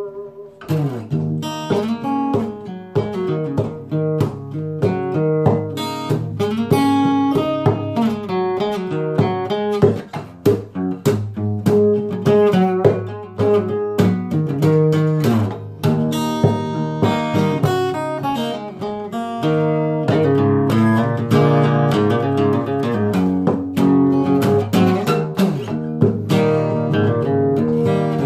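Solo acoustic guitar playing a blues, with picked single notes and chords, turning to a denser, more even run of chords about twenty seconds in.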